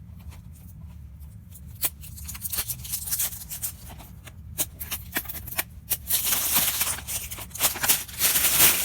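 Hands handling a precision screwdriver bit set and its packaging: scattered plastic clicks and taps, then a dense rustling rattle from about six seconds in.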